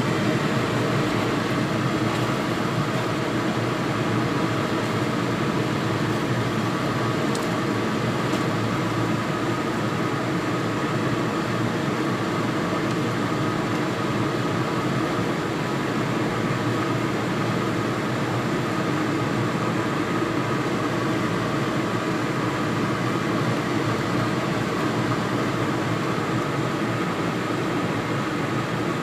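Steady mechanical whir of a fan-type machine: an even noise with a few steady tones that does not change.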